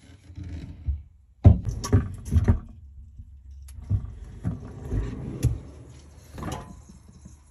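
Irregular knocks and clatter as plates are handled and the phone is picked up and set down in a new spot, with low handling thuds.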